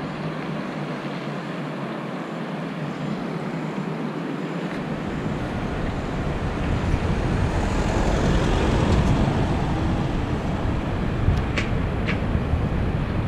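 Steady rushing of vehicle travel and wind on a moving microphone, with a deep rumble coming in about a third of the way through and growing louder. Two sharp clicks near the end.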